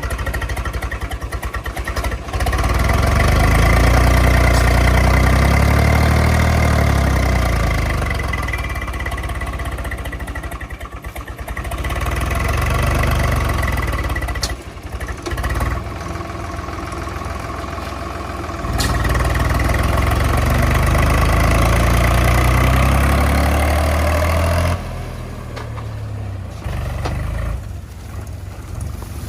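Heavy diesel machinery engine running under changing load, its revs rising and falling every few seconds, and quieter near the end.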